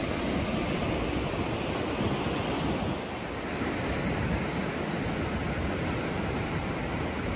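Ocean surf breaking on the shore below, a steady wash of noise, with some wind on the microphone.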